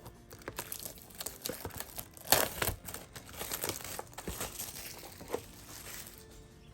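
Plastic shrink wrap being torn and crumpled off a trading-card display box, crinkling throughout with one sharp loud rip about two and a half seconds in.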